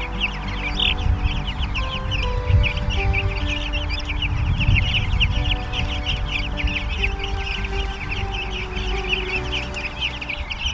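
A flock of young Jumbo Cornish Cross broiler chicks peeping constantly, many short high cheeps overlapping, over background music.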